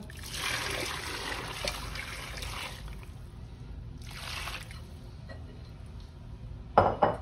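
Thin tomato-sauce broth being poured into a pot of stuffed zucchini and peppers, splashing for about three seconds, then a second, shorter pour. Near the end a brief loud knock.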